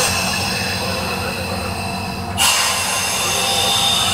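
Fishing boat machinery running steadily with a low hum. About two and a half seconds in, a high squeal and hiss start suddenly.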